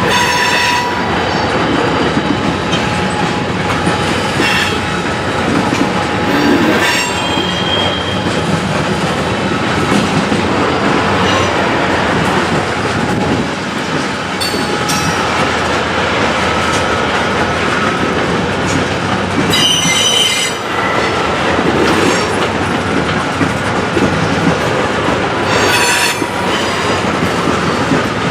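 Cars of a mixed freight train rolling past with a steady rumble of wheels on rail, broken every few seconds by short high-pitched squeals of wheel flanges against the rail.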